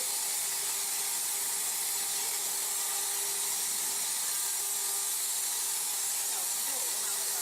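CNC plasma cutter's torch arc cutting sheet steel: a steady, unbroken high hiss.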